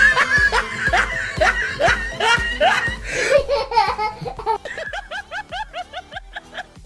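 Laughter over background music with a steady beat: a run of rising 'ha ha' laughs that turns into quicker, fainter giggling in the second half.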